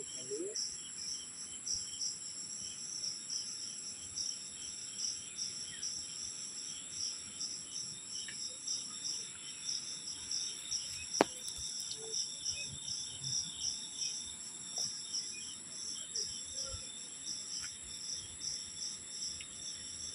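Insects calling steadily: a continuous high-pitched buzz under a regular, rhythmic cricket chirping. A single sharp click sounds about eleven seconds in.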